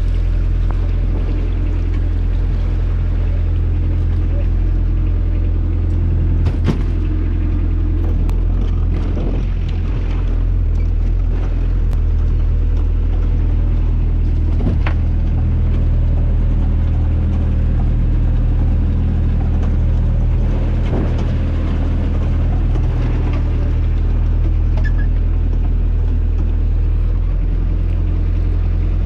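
Small fishing boat's engine running steadily at idle, with a slight change in its note near the end. A couple of sharp knocks, about a quarter and halfway through, as lobster pots are handled on deck.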